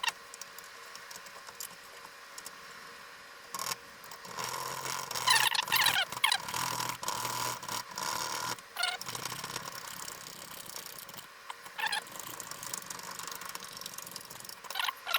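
Sticker glue residue being rubbed off a PC case panel: dry scrubbing with short squeaks, busiest from about four to nine seconds in, with a few more squeaks later.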